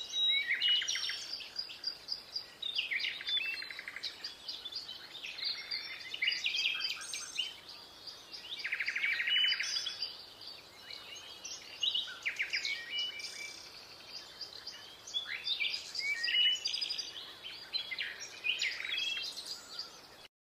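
Several birds chirping and calling, with rapid trills and short high notes coming in clusters.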